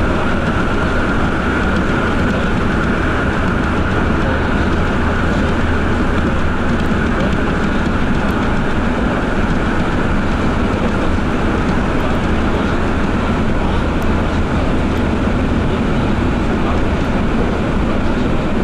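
Sapporo Municipal Subway Namboku Line train running at speed through the tunnel on its rubber tyres, heard from inside the car: a steady, loud rumble, with a high whine that fades over the first several seconds.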